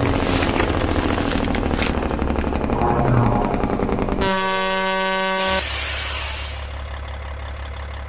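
Logo-sting sound design: noisy whooshing effects, then a single truck air-horn blast a little over four seconds in, held steady for over a second. A low steady rumble follows it.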